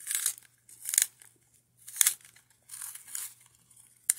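Graphite pencil being twisted in a Fiskars designer flip handheld plastic sharpener, the blade shaving the wood in short rasping strokes about once a second.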